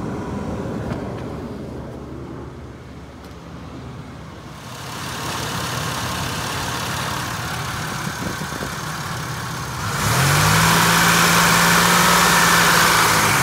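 2004 Chevy Impala's engine idling while its cooling system is bled, heard first from the cabin and then under the open hood. About ten seconds in a louder whir comes in, rising in pitch and then holding steady.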